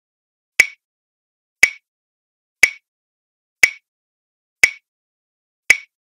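Quiz countdown timer's tick sound effect: six short, sharp ticks, one a second, with silence between.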